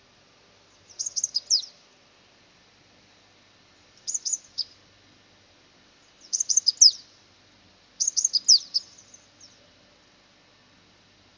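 Male purple-rumped sunbird singing: four separate bursts of quick, high, thin twittering notes, each note sliding downward, with the longest burst near the end.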